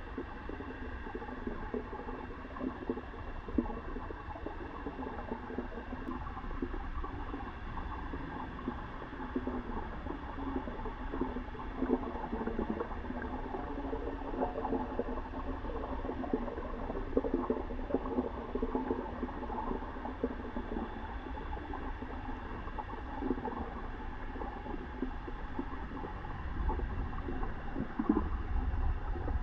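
Water gurgling and bubbling, continuous and irregular, over a steady low rumble.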